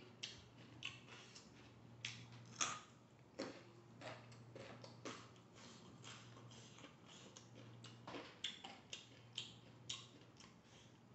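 Faint, irregular crisp crunches of a man chewing raw broccoli and raw carrot close to the microphone, over a steady low hum.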